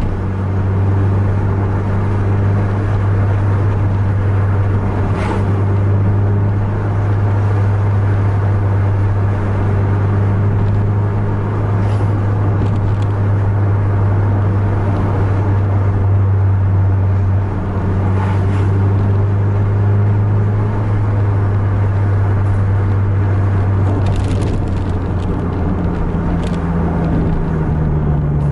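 Coach's diesel engine and road noise heard from inside the cab while cruising, a steady low drone whose pitch rises slightly near the end.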